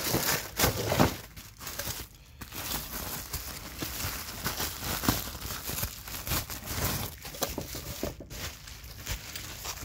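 Plastic bubble-wrap packaging crinkling and rustling as it is handled close to the microphone. Irregular crackles throughout, the loudest about a second in.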